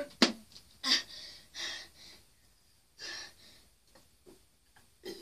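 A person gasping and breathing heavily: two short, sharp gasps in the first second, then several long, hissy breaths.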